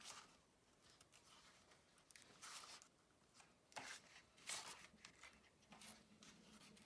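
Faint, short rustles and crackles of paper: the backing liners being peeled off double-sided score tape, and the cardstock frame being handled as its corners are pressed together.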